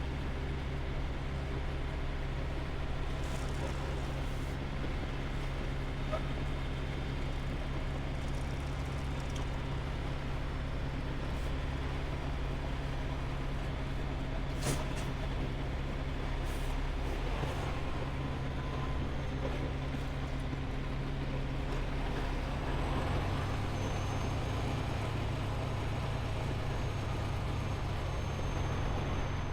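Semi-truck's diesel engine running steadily, its low rumble stepping up a little about three-quarters of the way through. A single sharp click comes about halfway.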